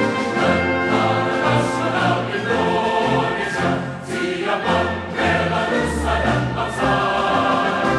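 Music with choral singing over a moving bass line.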